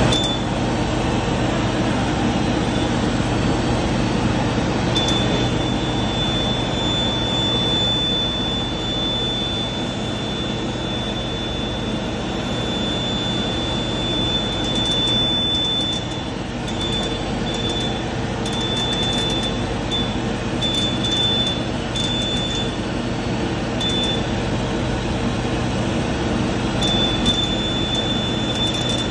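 Blown film extrusion line running: a steady machinery hum and blower noise, with a thin high whine that holds for about ten seconds and then cuts in and out.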